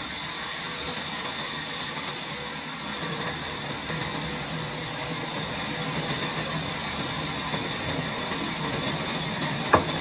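Large sawmill band saw running and ripping lengthwise through a bark-edged timber slab, a steady hiss of the blade over the hum of the machine. One sharp knock near the end.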